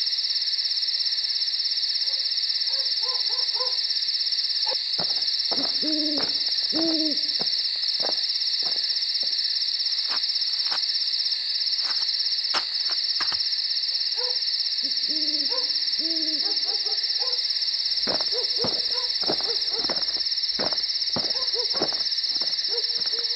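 Night ambience: an owl hooting in short runs of low hoots, several times, over a steady high-pitched insect chorus, with scattered faint clicks.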